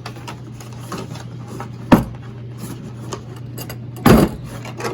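A socket set case and its sockets being handled: small clicks and rattles, a sharp knock about two seconds in and a louder knock about four seconds in, over a steady low hum.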